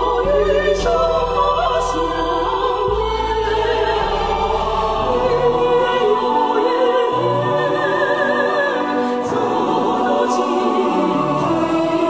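A choir singing a slow song over low sustained accompaniment, which thins out about halfway through.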